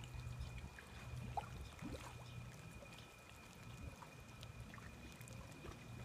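Faint canal water lapping and trickling against a seawall and dock pilings, over a low steady hum.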